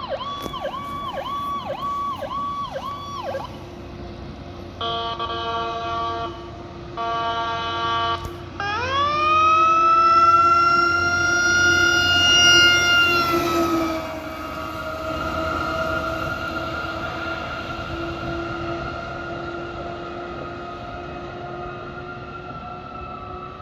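Fire tanker truck's warning devices as it approaches and passes. An electronic siren yelps in quick sweeps and stops after about three seconds. Two air-horn blasts follow, then a mechanical siren winds up to a loud, steady wail about nine seconds in, drops at about fourteen seconds and slowly winds down.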